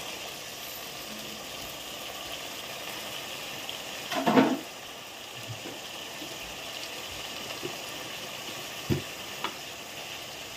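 Mutton and sautéed onions sizzling in oil in a cooking pot, a steady hiss, with one brief louder noise about four seconds in and a few light clicks near the end.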